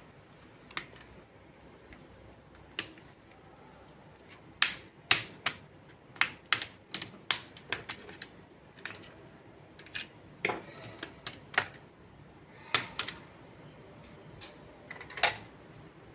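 Irregular sharp clicks and taps of an Acer laptop's plastic and metal parts being handled during disassembly, coming in clusters with short pauses between them.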